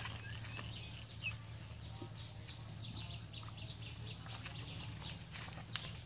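Soft rustling and scattered small clicks of dry straw as a cow is fed by hand, with a brief bird chirp about a second in, over a steady low hum.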